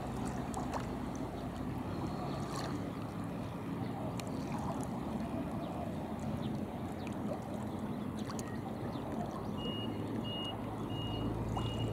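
Steady open-air background noise with a low hum and scattered faint clicks. Near the end, a short high electronic beep starts repeating about every two-thirds of a second.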